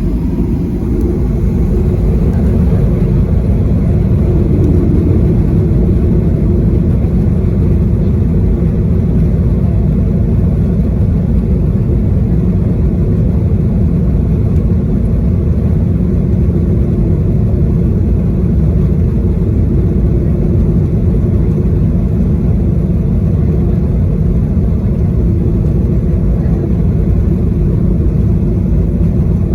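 Cabin noise aboard a Boeing 737-800: a loud, steady low rumble from its CFM56-7B jet engines and the airframe, with a steady hum running through it.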